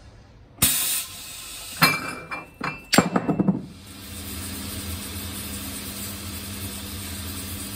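A short sudden hiss from a pneumatic sole press, then a run of clinks and knocks. From about four seconds a cobbler's finishing machine runs with a steady hum.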